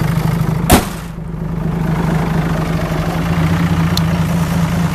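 2008 Dodge Ram 2500's 6.7-litre Cummins inline-six turbo-diesel idling steadily. Under a second in there is one loud slam as the hood is shut.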